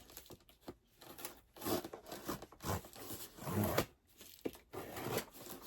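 A cardboard box being opened by hand: packaging tearing and crinkling in irregular bursts, with a few sharp clicks.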